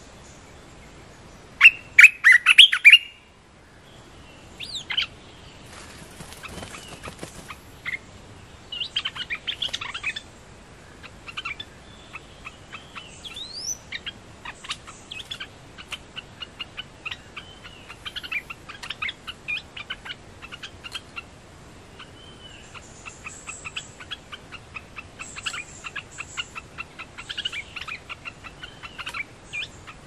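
Olive-winged bulbuls calling: a loud burst of rapid chattering calls about two seconds in, then a long run of short, quick call notes and brief whistles. It is the exchange between a caged decoy bulbul and a wild one drawn in to the trap cage.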